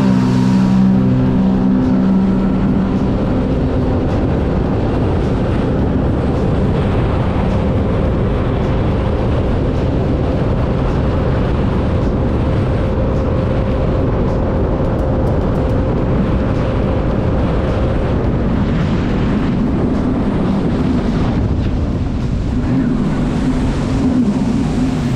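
2015 Sea-Doo GTX iS Limited 260 personal watercraft running at full throttle on a top-speed run, about 65 mph, its engine buried in heavy wind and water rush. A steady high tone holds through the middle and fades out about two thirds of the way in.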